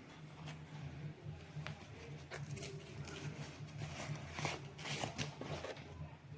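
Handling noise: scattered rustles and clicks over a steady low hum.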